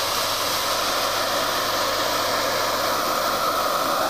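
Oxy-propane cutting torch flame burning with a steady hiss while its oxygen is turned down a little toward a neutral flame.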